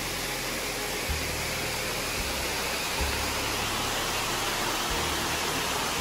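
Steady rush of a waterfall, with a few brief low rumbles.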